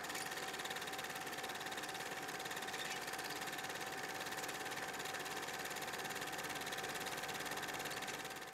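Film projector running: a steady, rapid mechanical clatter with a faint steady whine, fading out at the very end.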